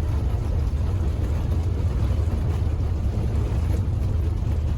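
VW Vanagon driving on a gravel road, heard from inside the van: a steady low rumble of engine and tyre noise.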